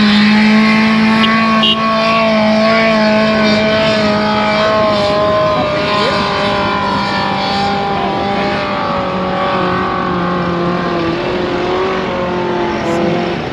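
A 4x4 pickup's engine labouring at high revs as it climbs a steep sand dune: a steady, loud engine note that sags slowly in pitch as the climb goes on.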